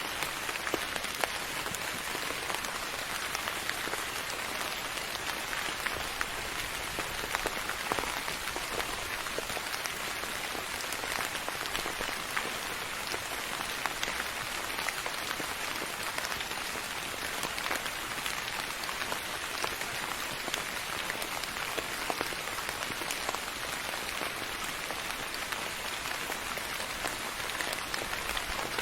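Steady rain falling on a surface: an even hiss with many small drop ticks scattered through it.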